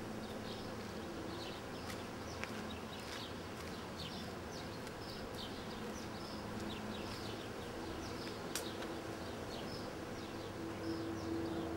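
Outdoor ambience: small birds chirping over and over, with a steady low buzzing hum underneath that grows louder near the end.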